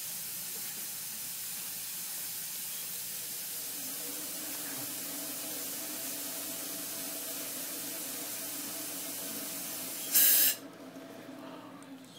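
Dental equipment working in the patient's mouth with a steady high hiss, then a short, much louder burst of hiss about ten seconds in, after which the hiss stops. A faint low hum runs beneath from about four seconds in.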